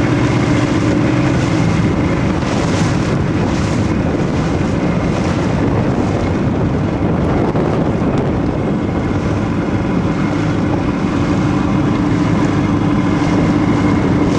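Motorboat engine running at a steady speed, with wind buffeting the microphone.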